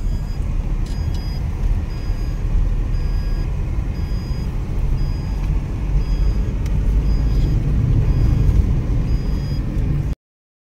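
Car-cabin noise of a car driving on a rough narrow road: a steady low rumble of tyres, engine and wind, with a faint short high beep repeating about once a second. It cuts off suddenly about ten seconds in.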